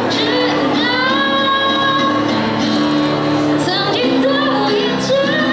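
A girl singing a Mandarin pop song into a microphone over a recorded backing track, amplified through a hall PA, with long held notes.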